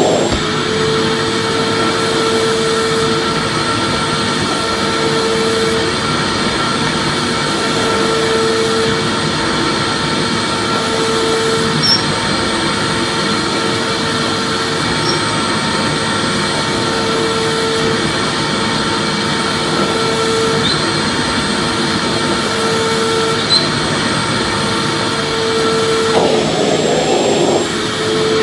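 Vacuum cleaner running steadily, a loud even whoosh with a hum that swells and fades about every three seconds, used as soothing white noise for babies.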